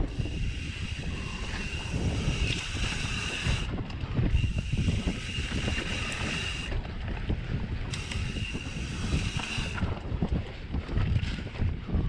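Mountain bike rolling on wet sandy singletrack: steady low rumble of the tyres and wind buffeting the camera microphone. A high, even buzz comes and goes three times, cutting in and out abruptly, typical of the rear hub's freewheel ratcheting while the rider coasts.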